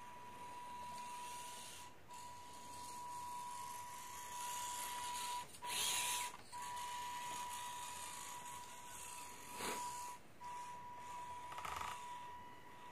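Small electric motor and plastic gearbox of a 1:24-scale RC crawler whining in short bursts as it is driven, the longest and loudest about halfway through, then two brief ones near the end. A faint steady high-pitched tone sits underneath.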